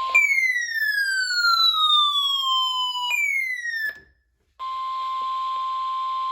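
Two electronic tones glide downward in pitch, one long and one short. After a second of silence, a NOAA Weather Radio warning alarm tone starts about four and a half seconds in: a single steady high tone signalling a weather warning.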